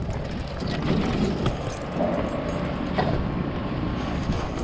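Rumbling, rustling movement noise from a camera strapped to a walking dog, with a few light clicks.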